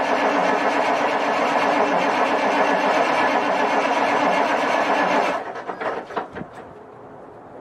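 Cummins Big Cam III NTC-400 inline-six diesel running steadily shortly after a cold start, then shut off a little over five seconds in, dropping away with a few knocks as it stops.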